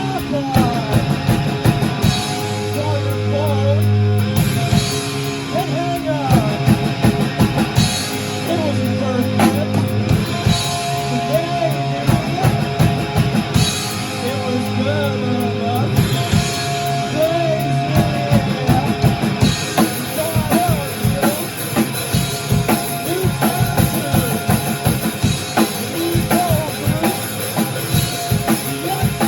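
Rock band playing a song: a busy drum kit with steady hits, electric guitar, low sustained bass notes and a singing voice.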